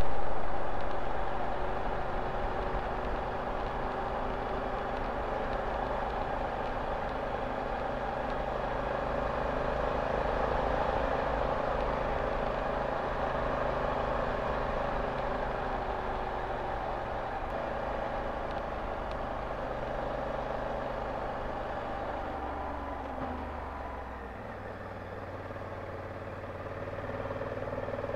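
A Honda Africa Twin motorcycle being ridden, heard as steady engine and wind and road noise. A few seconds before the end the engine note steps down and the sound quietens as the bike slows.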